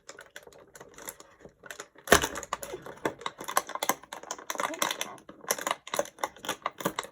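Small plastic toy packaging being handled and opened: irregular crinkling and clicking, with a sharper knock about two seconds in.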